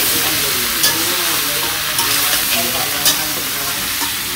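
Chopped ash gourd sizzling in hot oil in a metal wok as it is stirred with a spatula, the spatula clacking against the pan about once a second.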